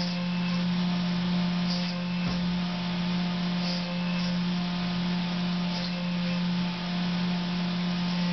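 Fadal CNC machine cutting a humbucker keeper bar with a small TiCN-coated bit under flood coolant: a steady spindle hum with a hiss of coolant spray, a brief higher-pitched hiss about every two seconds, and a single low knock about two seconds in.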